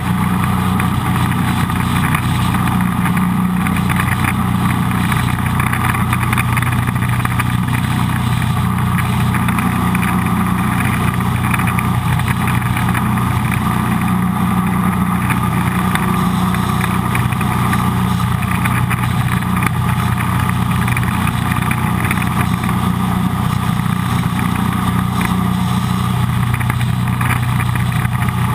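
Jet boat's engine running steadily under way at an even pitch, with the hiss of water and air rushing past.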